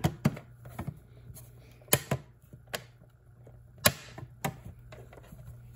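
Sharp, irregular clicks and taps of a pry tool working at the clips and tabs of a Blu-ray player's sheet-metal case, about eight in five seconds.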